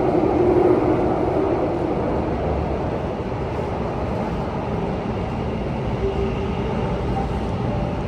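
Alstom C951 Downtown Line metro train running, heard from inside the carriage: a steady rumble and hiss. A faint humming tone fades out over the first couple of seconds.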